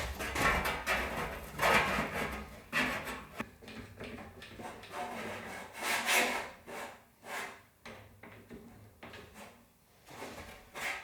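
Plywood being scraped and rubbed in a series of irregular strokes, roughly one a second, loudest near the start and again about six seconds in.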